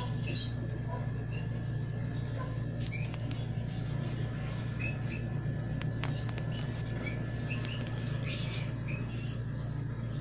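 Lovebirds giving short, squeaky chirps in quick runs while feeding, over a steady low hum.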